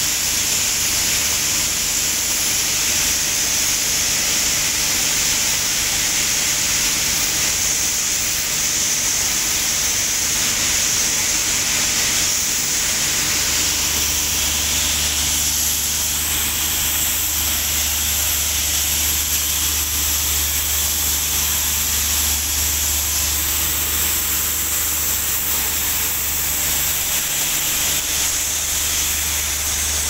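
Steady loud hiss of compressed air jetting from an air hose, over the low hum of an engine-driven air compressor that grows stronger about halfway through.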